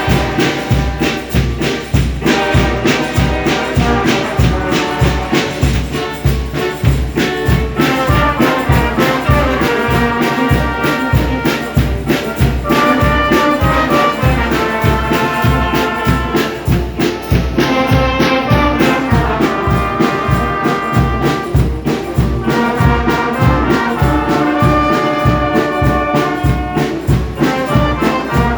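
Brass band music: trumpets and trombones play a melody over a steady, pulsing bass beat.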